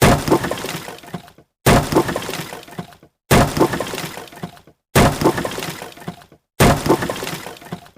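Wood smashing: a sudden crash followed by a clatter of pieces scattering and settling, each lasting about a second and a half. The same crash repeats five times at an even spacing of a little over a second and a half.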